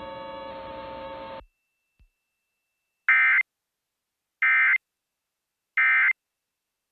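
Emergency Alert System end-of-message data tones: three identical short, harsh digital bursts about a second apart, marking the end of the tornado warning broadcast. Before them, a steady background tone under the alert cuts off.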